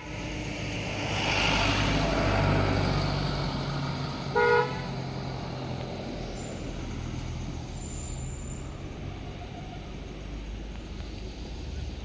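A road vehicle passing, its noise swelling over the first two seconds and then fading, with one short horn honk about four and a half seconds in. A low engine rumble carries on after it.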